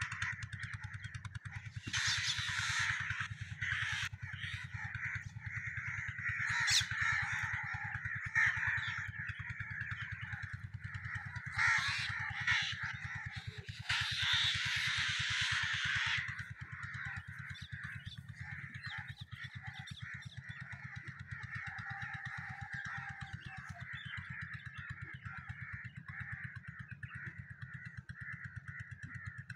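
A chorus of many birds calling at once, continuously, over a low steady hum, with louder noisy stretches about two seconds in, around twelve seconds, and from about fourteen to sixteen seconds.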